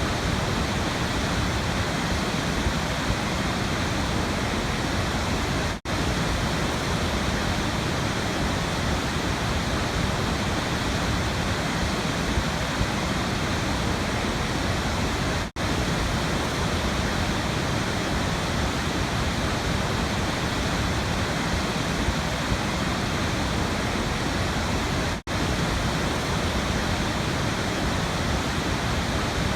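Waterfall: a steady, even rush of falling water. It drops out very briefly three times, about every ten seconds.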